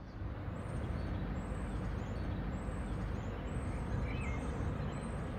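Outdoor street ambience fading in: a steady low rumble of traffic with small birds chirping now and then.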